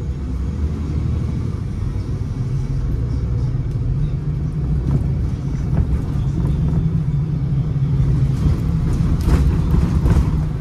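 City bus in motion heard from inside the cabin: a steady low rumble of engine and road noise, with a few brief knocks or rattles near the end.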